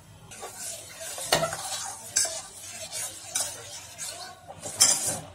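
Metal spoon stirring and scraping around a stainless steel pot of jaggery dissolving in hot water, with irregular clinks against the pot's sides and bottom.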